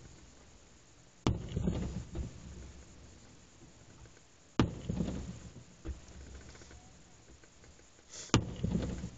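Fireworks aerial shells bursting: three sharp bangs about three and a half seconds apart, each followed by a rolling echo that dies away over about a second.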